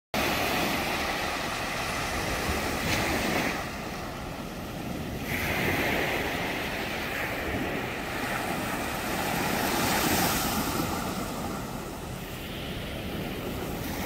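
Small ocean waves breaking and washing up a sandy beach among rocks, the surf rising and falling every few seconds.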